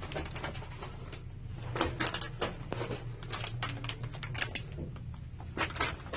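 Irregular scuffs and clicks of a person crawling over dirt and rough ground in a crawl space while handling the phone, with a steady low hum underneath.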